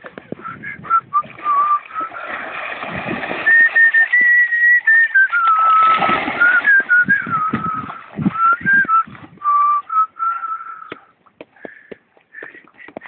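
A person whistling a long, wandering tune, with held notes rising and falling, over intermittent splashing from a giant schnauzer wading and swimming.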